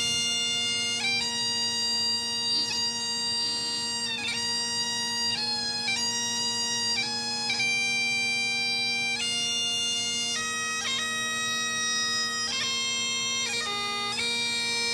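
Bagpipes playing a slow tune over their steady drones, the chanter moving between held notes with quick grace-note flicks at each change.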